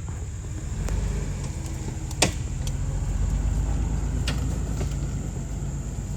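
Jeep engine running at low speed as it crawls over rough ground, growing a little louder about a second in. A single sharp knock a little over two seconds in, with a few lighter clicks around it.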